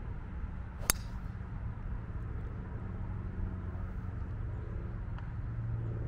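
Sharp crack of a driver striking a golf ball off the tee, once, about a second in, over a steady low background rumble.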